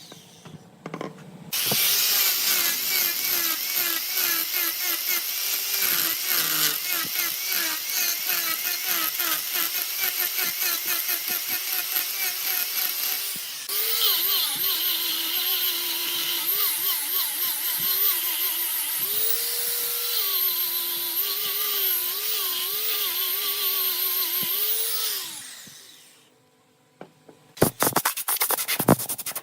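Wood lathe running while a turning tool cuts a spinning wooden workpiece: a steady motor drone whose pitch wavers up and down, under a scraping hiss, changing abruptly about halfway and fading out near the end, followed by a few clicks.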